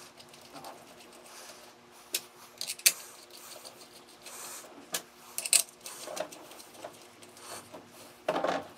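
Light, irregular metallic clicks and taps as steel bolts are threaded by hand into a 47/48RE transmission front pump and its stator support, over a faint steady hum.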